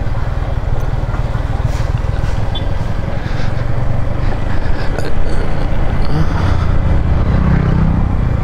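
Yamaha MT-15's single-cylinder engine running at low speed in second gear on a steep, rough descent, a steady low engine note that grows a little louder about halfway through.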